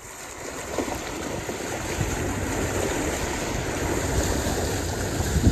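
A vehicle fording a shallow creek: water rushes and splashes against the tyres and underbody, building over the first second and then holding steady.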